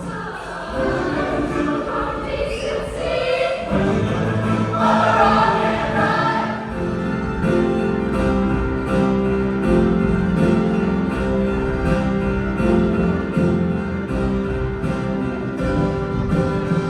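Music with a choir singing; about seven seconds in, steady held chords come in under a regular beat.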